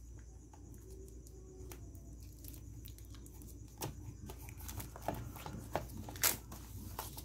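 Plastic wrapping being torn and peeled off a product box by hand: scattered crinkles and small clicks, starting about halfway in after a faint first half.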